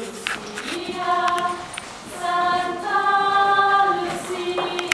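Lucia procession choir of girls and young women singing together, a slow melody in long held notes.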